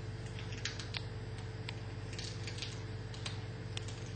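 A cat chewing on a rat, an irregular run of small sharp crunches and clicks as it bites through the carcass, over a steady low hum.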